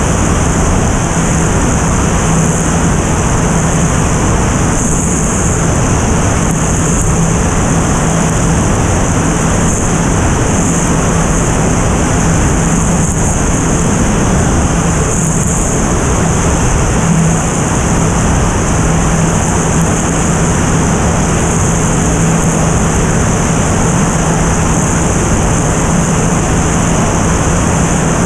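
Single-engine propeller airplane in steady cruise, heard as a loud rush of airflow buffeting an outside-mounted camera, with a steady low drone from the engine and four-bladed propeller underneath.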